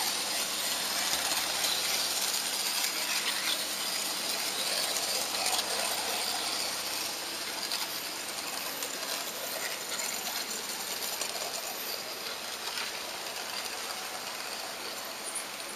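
HO-scale model train running along the track, heard from a camera riding on the train: a steady whirring hiss of the small electric motor and the wheels rolling on the rails, getting a little quieter toward the end.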